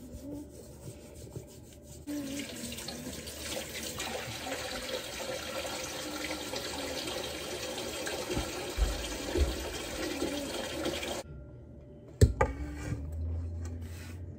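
Kitchen tap running in a steady rush, starting abruptly about two seconds in and shut off abruptly about eleven seconds in, followed a second later by a single sharp knock.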